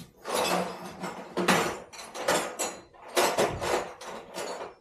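Tools and metal parts clattering and knocking as they are handled and rummaged through, in about five short bursts.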